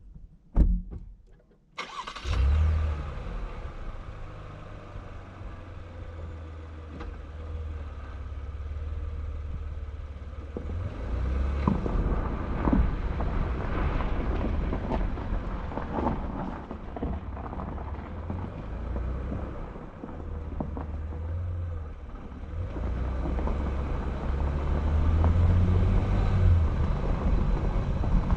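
A car engine starts with a sudden rumble about two seconds in, after a couple of sharp knocks, then keeps running as the car drives off, with scattered knocks and rattles, louder near the end.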